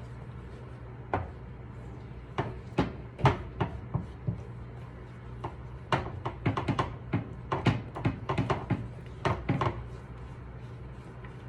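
A cooking utensil clacking and knocking against a pan in irregular strokes while a sauce is stirred, busiest in the second half, over a steady low hum.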